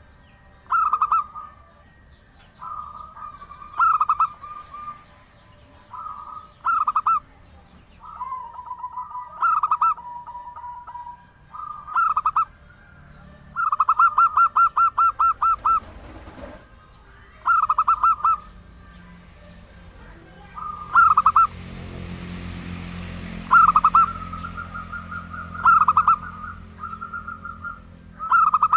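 Zebra dove (perkutut) cooing in short phrases every second or two, some drawn out, with one fast run of quick repeated notes about halfway through. It is the call of a female used to lure males.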